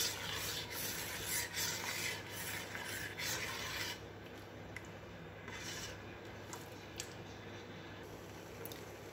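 Steel spoon scraping and rubbing the bottom of a steel pot while stirring milk that is reducing and thickening into palkova, stirred continuously to keep it from sticking. Repeated scrapes for about four seconds, then quieter with a few light taps.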